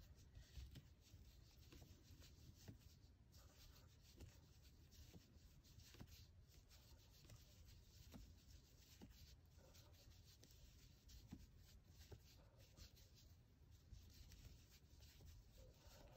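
Near silence: faint rubbing and scattered soft clicks of a metal crochet hook working super bulky yarn into double crochet stitches.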